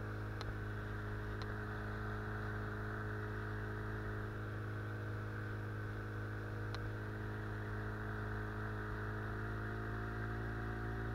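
Outboard motor pushing an inflatable boat upriver, running at a steady speed with an even hum, its pitch shifting slightly near the end. A few light ticks sound over it.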